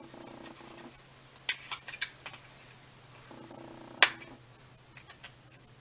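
Sharp clicks and snaps of a small cardboard product box being forced open and torn, the loudest a single snap about four seconds in. Two brief steady hums sound near the start and again just before that snap.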